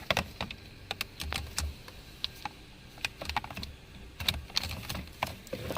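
Irregular small plastic clicks and taps, about fifteen of them, from hands working the clips, tabs and connectors of the steering column switches and trim.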